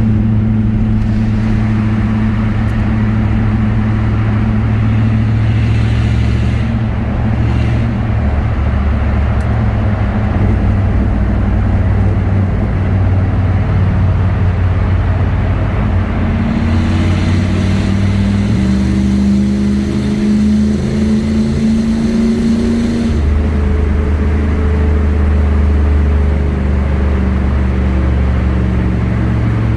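Loud V8 exhaust of a 1987 Pontiac Firebird Trans Am's 5.7-litre TPI engine, echoing in a highway tunnel as the car drives through. The engine note rises in pitch a little past halfway and drops back about three-quarters of the way through.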